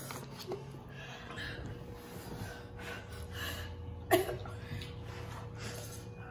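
Heavy breathing and noodle slurping from people eating extra-spicy instant ramen, panting against the chili heat, with one short, sharp vocal outburst, like a cough, about four seconds in.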